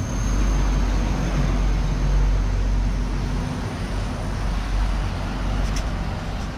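Steady road-traffic rumble with a faint engine hum, swelling louder about two seconds in as a vehicle passes.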